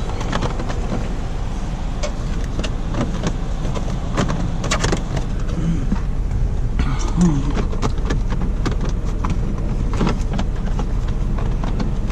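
Plastic steering-column trim pieces being handled and fitted back into place by hand, making a scattered series of light clicks and knocks over a steady low hum.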